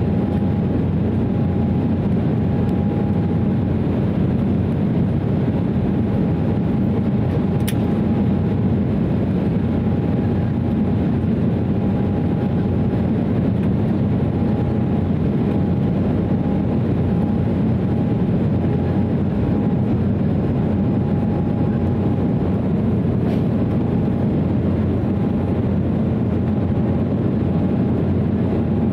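Steady in-flight cabin noise of an Embraer 190 airliner: its turbofan engines and rushing air make a deep, even drone, with a faint steady whine on top. A faint click sounds about eight seconds in.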